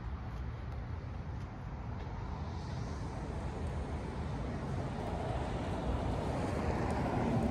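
Steady low outdoor rumble with no distinct event, growing slightly louder near the end.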